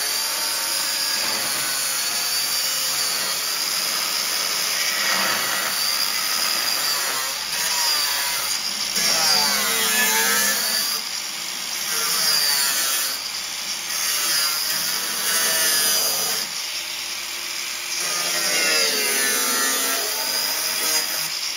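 Angle grinder working the rusted steel door sill of a car, throwing sparks. Its high motor whine runs steadily and drops in pitch several times as the disc is pressed into the metal.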